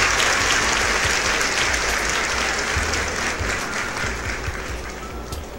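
Applause from a crowd clapping, fading out gradually.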